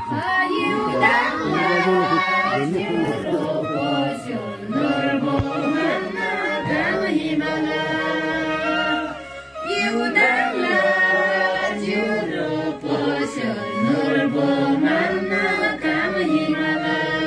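A group of voices singing a song together, with a brief dip about nine and a half seconds in.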